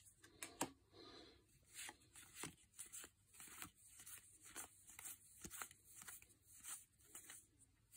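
Trading cards being moved one at a time through a hand-held stack, a faint card-on-card slide or tap about every half second.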